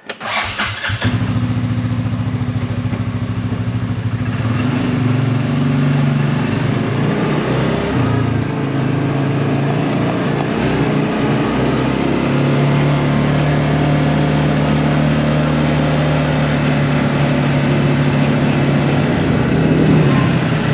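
Small petrol engine of a ride-on vehicle running steadily as it is driven along, coming in about a second in, its pitch shifting a little with the throttle.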